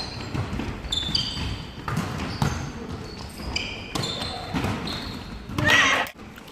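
Indoor volleyball rally in an echoing sports hall: the ball is struck and athletic shoes squeak in short chirps on the wooden court, with players' voices. A loud shout comes near the end, then the sound cuts off abruptly.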